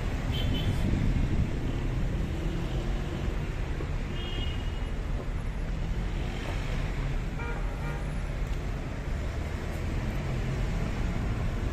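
Road traffic on a busy city boulevard: a steady rumble of car engines and tyres passing, with a few brief high-pitched tones.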